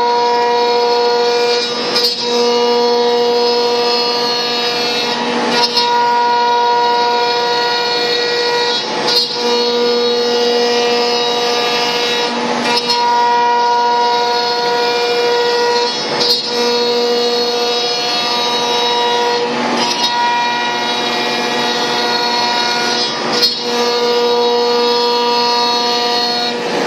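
CNC router spindle running at speed while milling MDF, a steady high whine over the noise of the cut. About every three and a half seconds the tone briefly breaks, as the cutter reaches the end of a pass and turns back.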